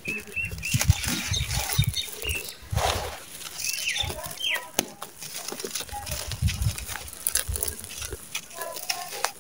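Dry red sandy soil clods crunching and crumbling as they are squeezed and broken apart in bare hands, with gritty crackling and grains spilling down.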